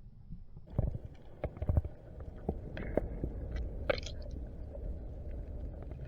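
A low, steady rumble with scattered sharp clicks and knocks, several of them louder, starting about a second in.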